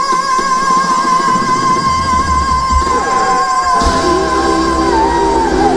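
Live rock-soul band playing, with a woman singing and electric guitar over two drum kits. One long high note is held for several seconds with a slight waver and drops away near the end. The drums build up about two seconds in, with a cymbal crash about four seconds in.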